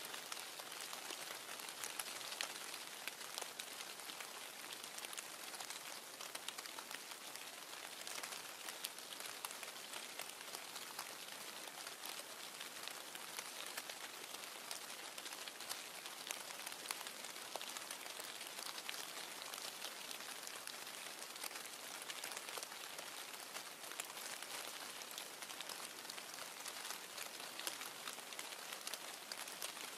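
Faint, steady patter of light rain: a soft hiss with fine, scattered ticks.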